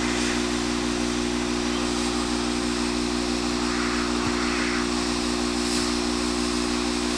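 SparkFun hot air rework station blowing hot air from its nozzle, turned up to full, to melt the solder on a connector's pins: a steady hiss of rushing air over a steady low hum.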